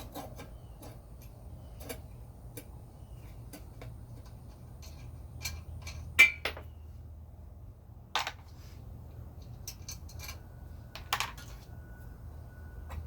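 Scattered metal clinks and knocks of hand tools and small metal parts during a generator teardown, the loudest a sharp clink about six seconds in, over a low steady hum.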